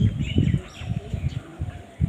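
Birds chirping in short high calls over a run of irregular low thumps and rustles.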